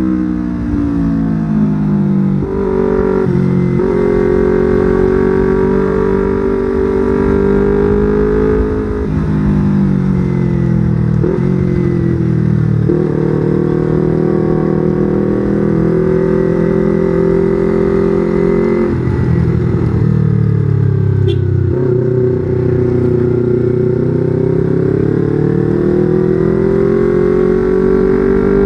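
Yamaha R25's 250 cc parallel-twin engine under way, revving through the gears. The engine pitch jumps up and drops back several times with the gear changes, then climbs steadily near the end.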